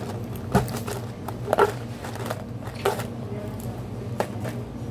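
Steady low hum of a restaurant dining room, broken by a handful of sharp clacks, the loudest a quick double one about a second and a half in.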